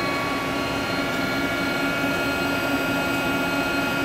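Steady hum of a CNC lathe's electrical cabinet, with its Fanuc drives and cooling fans running, and several constant high whining tones above the hum.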